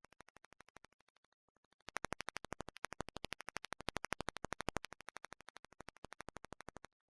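Rapid, evenly spaced clicking, about a dozen clicks a second. It is faint at first, much louder from about two seconds in, and cuts off just before the end. This is electronic noise on a failed audio recording, not the sound of the scene.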